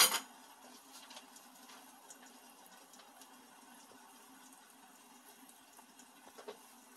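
A sharp click at the very start, then bean sprouts steaming and lightly crackling in a lidded frying pan over a gas burner: a faint steady hiss with scattered small ticks, and a small knock near the end.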